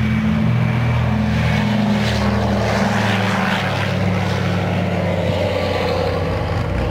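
Douglas C-47/DC-3 Dakota's two Pratt & Whitney R-1830 Twin Wasp radial engines running hard as the aircraft lifts off and climbs past. A loud, steady, deep drone, with a tone that falls in pitch near the end as it goes by.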